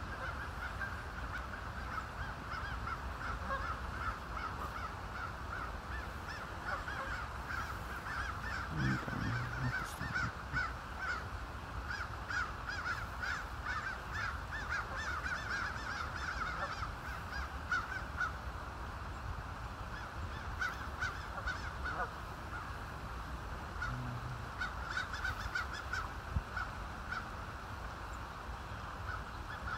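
A flock of Canada geese calling: a continuous chorus of short, overlapping honks, over a steady low rumble.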